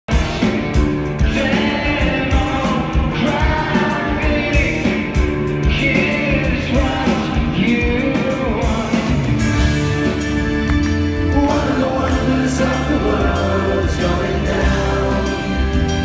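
Live rock band playing in concert: drums, bass and electric guitars at full volume, heard from within the audience.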